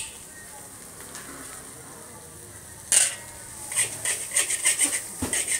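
Metal spatulas scraping and clinking against a large wok as fried noodles are tossed, over a faint sizzle. About three seconds in there is a loud scrape, then quick clinks about four a second.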